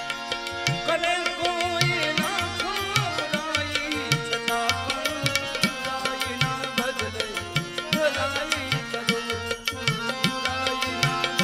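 Live Gujarati devotional bhajan (santvani): a man's voice singing over the held chords of a harmonium and a steady drum beat, the voice coming in about a second in.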